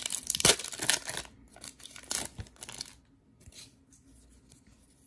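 The wrapper of a Score football trading-card pack being torn open and crinkled by hand: a dense crackling for about the first second and a half, then a few scattered crinkles and rustles that die away about three seconds in.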